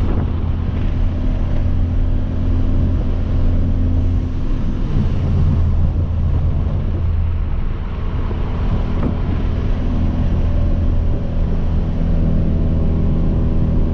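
Hyundai Veloster Turbo's turbocharged four-cylinder engine running through a catless downpipe exhaust at a steady cruise, a constant drone heard from inside the car. The engine note grows stronger near the end.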